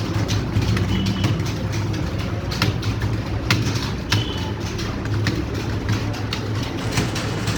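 Many computer keyboards clattering in a fast, irregular patter of key clicks as a roomful of students type at speed, over a steady low hum.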